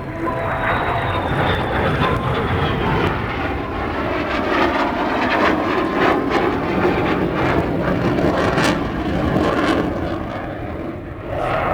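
Aircraft engine noise from an aircraft flying past, loud and steady for several seconds, with a faint high whine that slowly falls in pitch early on.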